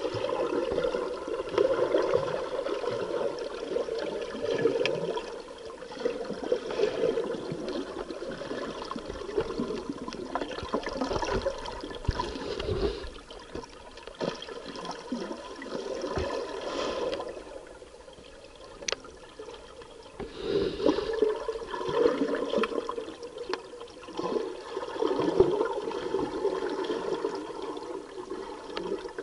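Scuba diver's breathing through a regulator, with exhaled bubbles gurgling and rushing, heard underwater. It swells and fades every few seconds with each breath.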